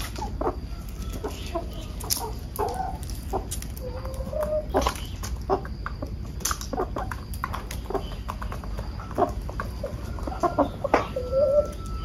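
Roosters calling in short notes as they feed, over a run of sharp taps from beaks pecking grain off the concrete; a longer, drawn-out call comes near the end.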